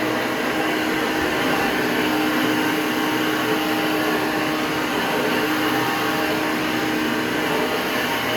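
Hoover Breathe Easy upright vacuum cleaner running steadily, a constant rushing noise with a steady hum underneath.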